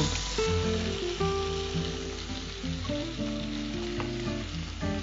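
Chicken masala sizzling steadily in a frying pan, with the stove turned down low, over soft instrumental background music.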